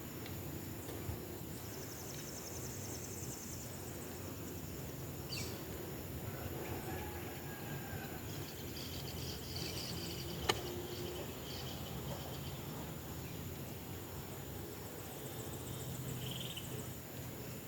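Rural outdoor ambience: insects trilling steadily, with birds chirping around the middle, over a low steady background hum. A single sharp knock about ten seconds in.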